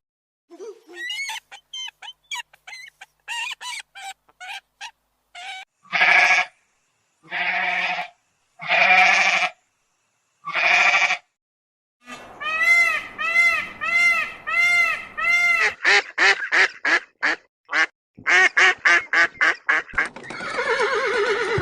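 A run of different animal calls one after another: short chirps, then four long bleats, then a fast series of rising-and-falling chattering calls, and near the end a whinny beginning.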